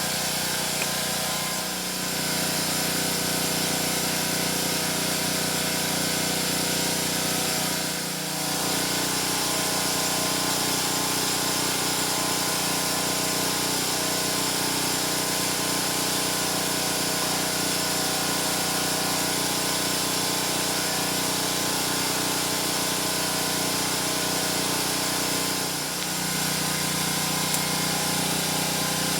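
A small motor running steadily with a hum and hiss, dipping briefly three times.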